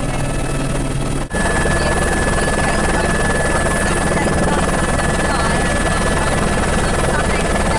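Helicopter in flight heard from inside the cabin: loud, steady rotor and engine noise with a constant high whine, briefly dropping out about a second in.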